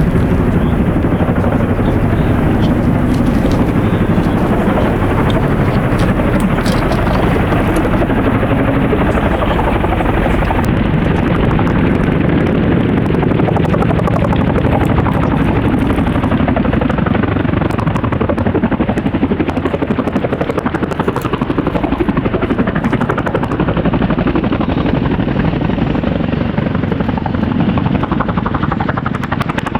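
Boeing CH-47 Chinook tandem-rotor helicopters, two of them, running loud and steady at close range as they come in to land: the rotor thump and turbine noise never let up.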